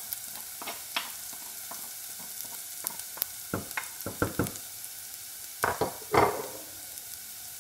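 Chopped ginger frying in olive oil in a saucepan, giving a steady sizzle. Over it a spoon stirs herbs into a pot of lentil dal, with scattered short clinks and scrapes against the pot and a few louder knocks a little under six seconds in.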